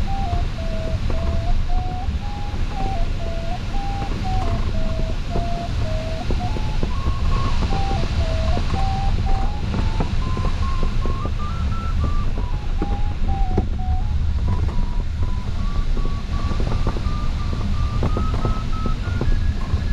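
A glider's electronic variometer tone stepping up and down in pitch, lower in the first few seconds and climbing higher in the second half as the climb rate rises, over a steady rush of airflow in the cockpit.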